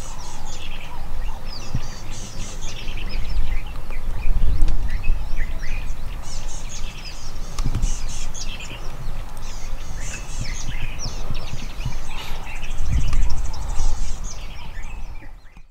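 Many small birds chirping and twittering in quick short notes, over a low rumble. Everything fades out near the end.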